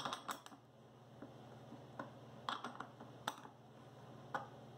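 Sharp clicks and light knocks of steel hardware (a bolt, a half-inch nut and a wrench) handled against a wooden block on a wooden workbench, coming in a few short clusters about a second apart.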